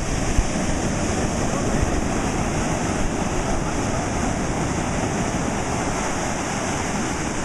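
Ocean surf breaking and washing over the shallows: a steady, even rush of water.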